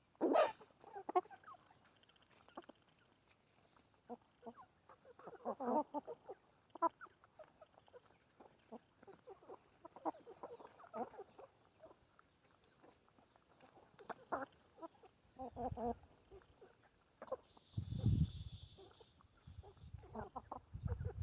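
Domestic chickens clucking on and off while feeding. Near the end comes a burst of noise, about two seconds long, with a low rumble.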